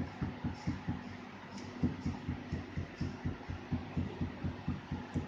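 A Chinese cleaver beating slices of pork chop on a thick wooden chopping block, a rapid run of dull thuds at about four a second: the meat being pounded to tenderise and flatten it.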